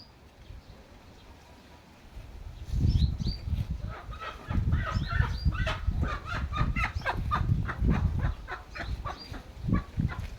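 A rapid run of short bird calls, a few a second, over a loud low rumbling noise that starts about three seconds in.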